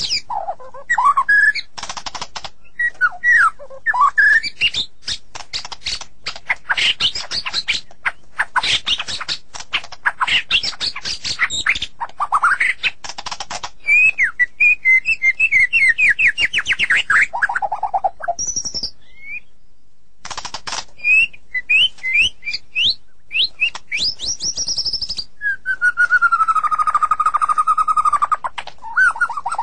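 White-rumped shama singing a long, varied song: fast chattering rolls, quick sweeping whistles and a run of repeated rising notes midway, then a held whistle of about two seconds near the end.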